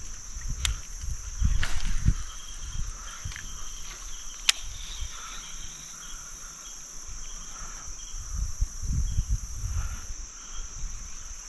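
Steady high-pitched drone of insects, with intermittent low rumbles and two sharp clicks, the louder one about four and a half seconds in.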